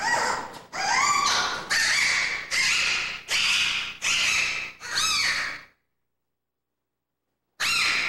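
Giant panda cub squawking: about seven loud, high calls that rise in pitch, one after another, then a break and another squawk near the end.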